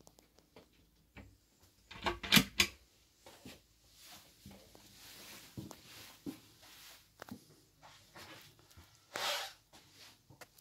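Wooden cabin cupboard doors and their contents being handled: scattered clicks and knocks, with a few sharp loud knocks about two seconds in and a short rustling burst near the end.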